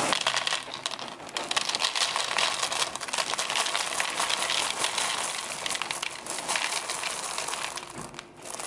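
Dry Lucky Charms cereal pouring into a paper bowl: a dense, continuous patter of many small pieces landing, with crinkling, thinning out about eight seconds in.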